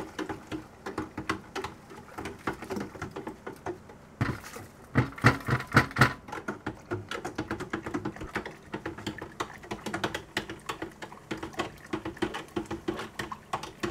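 Hydroponic nutrient solution being stirred by hand in a bucket: quick, irregular knocks and clatter of the stirrer against the bucket with swishing water, loudest about four to six seconds in.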